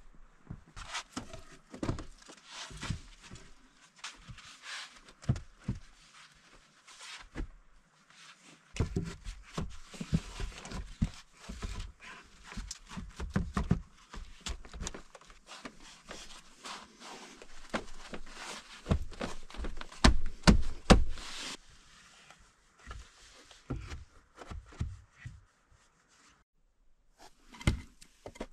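Irregular knocks and thuds from hand work with wood and tools, with scraping and rustling in between. The loudest knocks come in a quick cluster about two-thirds of the way through, and there is a brief lull near the end.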